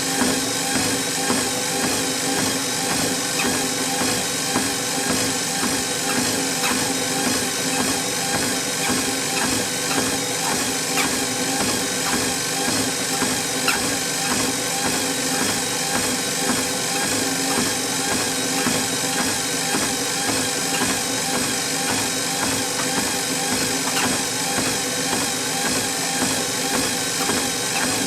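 Motorised treadmill running with someone walking on it: a steady hum from the motor and belt, with an even rhythm of footsteps on the moving belt.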